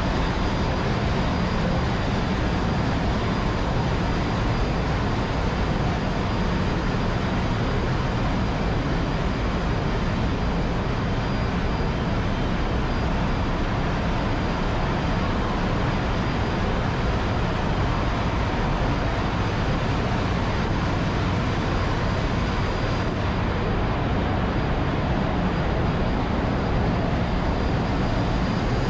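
Steady, loud din of a ship's engine room: diesel engines, pumps and other machinery running together, with a low hum underneath and a faint high whine.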